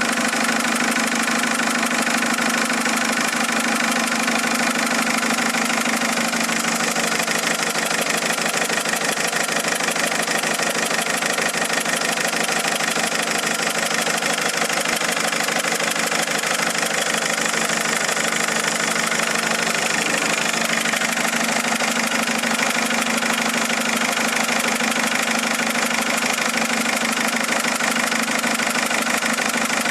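Mercedes-Benz A170 engine idling steadily with a fast, even knocking. The knock is still there after three injectors have been replaced.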